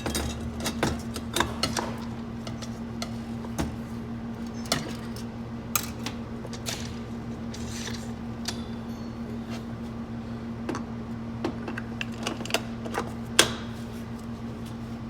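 Irregular light metallic clicks and clinks of automatic-transmission clutch parts being handled and slid into the transmission case, the sharpest knock about thirteen seconds in, over a steady low hum.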